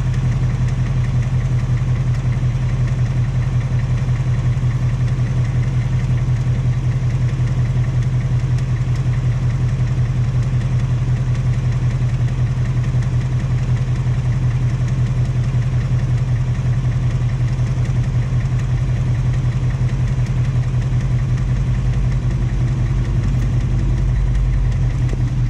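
A 2018 Mustang GT's 5.0 L Coyote V8 idling steadily. This is the second engine, which has developed a tapping/knocking noise at about 1,200 miles, a fault the owner labels 'BBQ tick' or piston slap.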